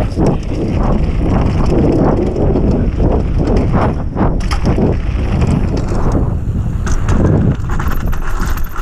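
Mountain bike rolling fast down a dirt and gravel trail: wind buffeting the camera microphone over tyre noise, with knocks and rattles from the bike as it runs over bumps.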